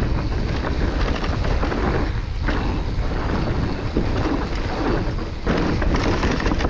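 Wind rushing over the microphone, with the rattle and knocks of an electric mountain bike ridden fast down a dirt trail, its tyres running over roots and bumps. The noise dips briefly twice.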